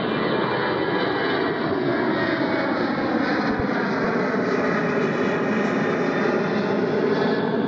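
Boeing 737-800's two CFM56-7B26 turbofan engines at climb power as the jet climbs out after takeoff: a loud, steady rushing jet noise with faint whining tones running through it.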